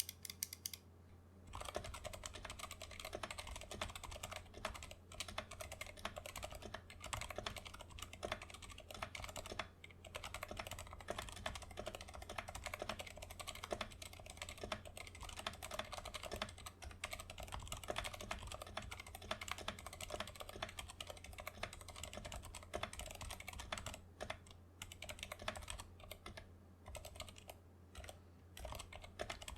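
Typing on a custom-built GK68XS 65% mechanical keyboard with Kailh Box Silent Brown switches and XDA-profile PBT keycaps: a quiet, steady run of keystrokes that starts about a second and a half in, with a few short pauses near the end.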